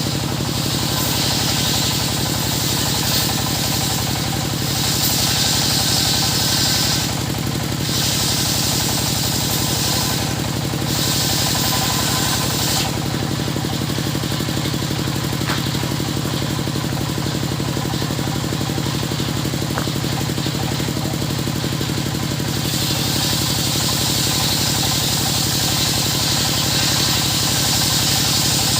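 Engine-driven circular saw (serkel) running steadily with a constant low drone, overlaid by several spells lasting a few seconds each of louder high-pitched hiss, typical of the blade cutting through wood.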